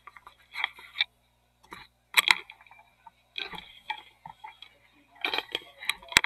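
Handling noise: a scattered series of clicks, taps and short rattles as the camera and its mount are adjusted and moved, ending with a sharp click.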